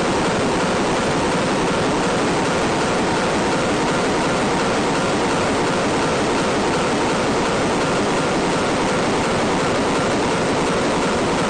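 A steady, even noise like static or rushing water, loud and unchanging, with no beat, tone or break.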